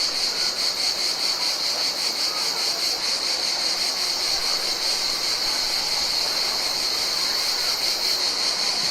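Summer insect chorus: a steady high-pitched trilling that pulses quickly and evenly, with a faint hiss beneath.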